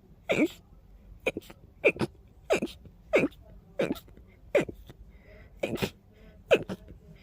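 A person sneezing in a rapid series: about nine short, sharp sneezes, roughly one every two-thirds of a second, each dropping in pitch, with a brief pause about five seconds in.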